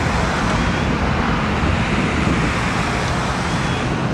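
Steady road traffic noise, a dense even hiss with a heavy low rumble.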